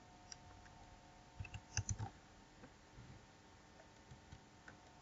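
A few faint computer keyboard keystrokes, clustered about a second and a half in, with single fainter clicks later, over a faint steady hum.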